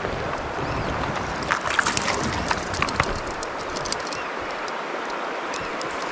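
Steady rush of flowing stream water, with a short run of light clicks about a second and a half to three seconds in.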